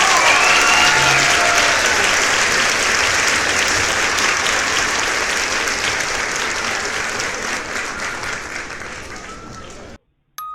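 Crowd applause sound effect, dense clapping with a few cheering voices in the first second. It slowly fades, then cuts off abruptly about ten seconds in.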